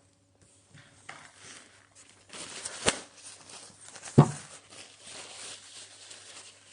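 Handling noise of earphones and their packaging being moved about by hand: rustling and scraping with two sharp knocks, the louder one a little after four seconds in.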